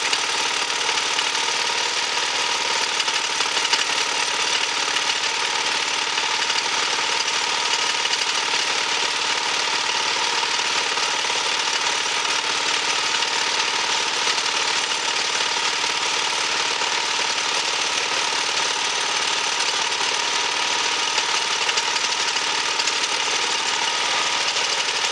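Engine of a small portable pusher band sawmill running steadily at constant speed.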